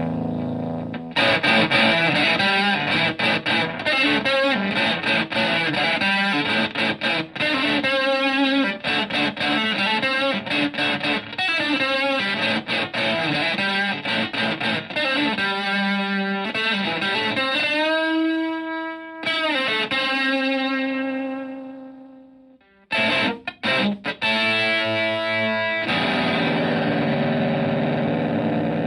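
Stratocaster electric guitar played through a Zonk Machine-style fuzz pedal into a Fender Twin Reverb clone amp: fast, choppy fuzzed riffs, a long held note bent up and back down about two thirds of the way in, a brief break, then short stabs and ringing held notes.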